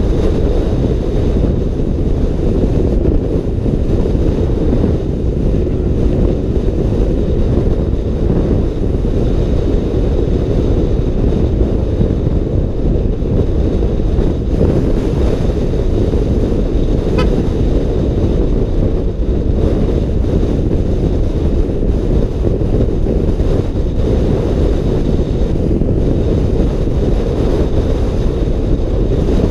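Loud, steady wind rush buffeting a helmet-mounted camera microphone while riding a Yamaha NMAX scooter at road speed, drowning out the engine.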